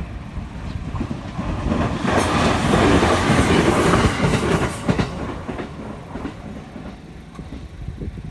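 A train passing close by, its wheels clicking over the rail joints; it is loudest about two to five seconds in, then fades away.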